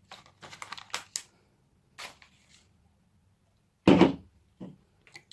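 Handling noise from a small measuring jug and slime container: a few light clicks and taps, then a single louder thunk about four seconds in, like the jug being set down on the table.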